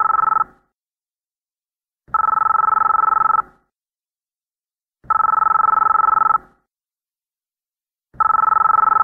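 Telephone ringing in repeated rings of about a second and a half, one every three seconds, each a two-tone trill.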